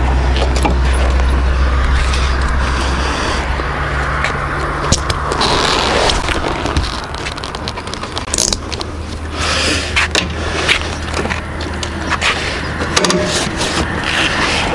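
IZh Jupiter-5's two-cylinder two-stroke engine idling steadily, with sharp clicks and scraping handling noises from about five seconds in.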